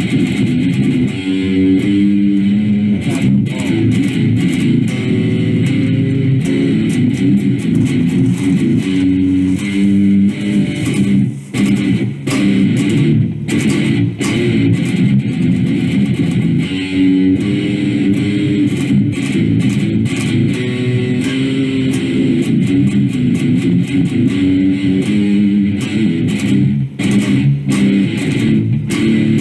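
Electric guitar played through an amplifier: a continuous fast riff, with a few brief stops between phrases.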